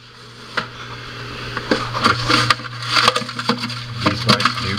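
Handling noise on a wooden subwoofer enclosure: scattered knocks, taps and scrapes over a steady low hum.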